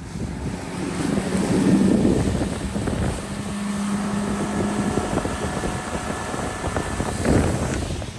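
Fishing boat's outboard motor running, mixed with wind buffeting the microphone and rushing water.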